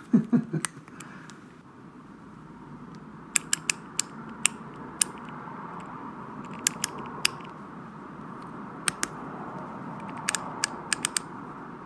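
A freshly greased 1947 Snap-on GM-70M ratchet being worked by hand, its pawl and gears giving sharp clicks in small clusters a second or two apart. A faint steady hum runs underneath.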